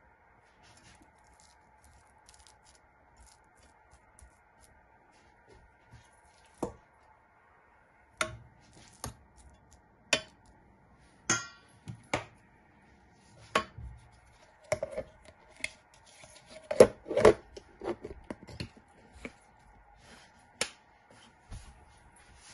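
Irregular knocks, clicks and scrapes against a stainless steel food processor bowl as a soft cooked mixture is spooned in and the lid is put on, over a faint steady hum. The first seconds are quiet apart from the hum and a few light taps; the knocks come thick from about a third of the way in.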